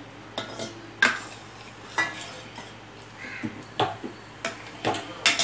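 Steel ladle clinking and scraping against a stainless-steel pressure-cooker pan while stirring cooked dal, with irregular sharp clinks about once or twice a second, some ringing briefly.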